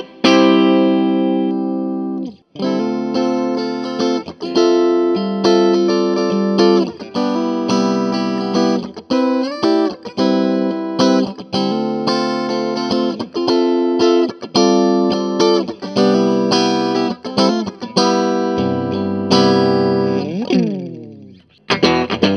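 Electric guitar played clean through an Orange Crush Pro 60 amp, with flat EQ and a little plate reverb: chords and picked notes strike and ring out in a loose riff, with a bending pitch glide near the end as a note fades.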